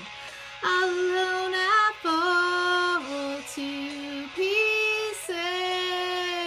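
A woman singing unaccompanied: a string of held, wordless notes about a second each, stepping up and down in pitch with short breaks between them, starting about half a second in.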